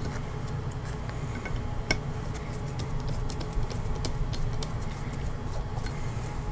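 Faint clicks and ticks of a Torx screwdriver and small screws as the two cover-plate screws are backed out of a Glock 45 MOS slide, over a steady low room hum.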